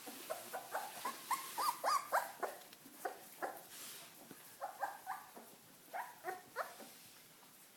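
Welsh Corgi puppies giving short, high-pitched yips and whimpers in quick runs, with brief pauses between the runs, thinning out near the end.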